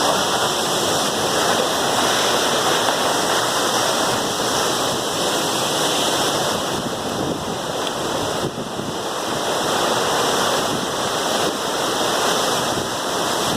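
Waterfall: a steady rush of falling water with no breaks.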